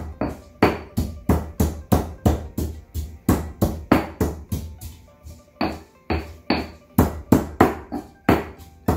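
Garlic being pounded to a paste with a pestle in a stone mortar: steady, rhythmic strikes about three a second, with music playing underneath.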